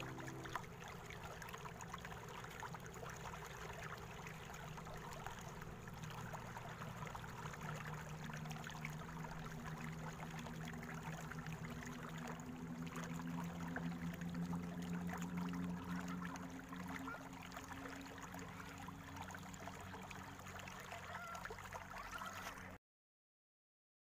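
Faint trickle and gurgle of a shallow stream, with a low steady hum underneath that swells in the middle; the sound cuts off abruptly near the end.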